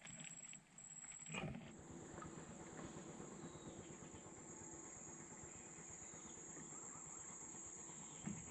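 Faint riverside ambience: insects droning at a steady high pitch, in short pulses at first and continuous from about a second and a half in, over a low rumble. A short knock comes about a second and a half in.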